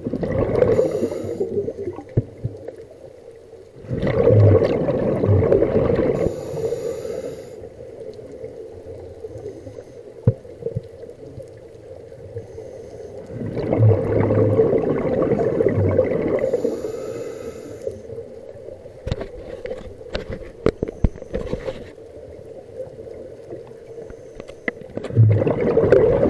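Scuba diver breathing through a regulator underwater: a long rush of exhaled bubbles about every ten seconds, three of them followed by a short high hiss of the regulator on the inhale.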